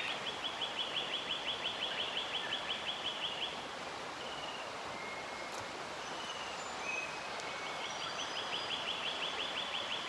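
Lyrebird singing, mimicking other birds: a fast run of rapidly repeated high notes for about three and a half seconds, a few short whistled notes, then another fast run of repeated notes near the end.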